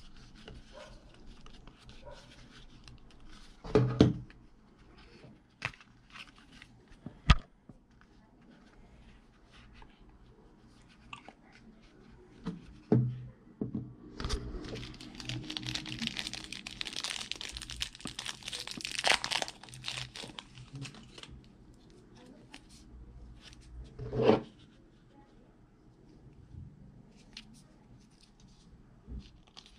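Handling noise from plastic walkie-talkies and their packaging: several sharp knocks and clicks as the hard cases are handled and set down. About halfway through comes a stretch of several seconds of crinkling and rustling from plastic packaging.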